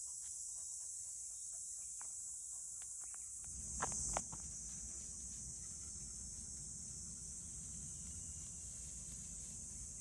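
Steady high-pitched insect chorus. Two sharp clicks come about four seconds in, and a low rumble sets in at the same point and continues.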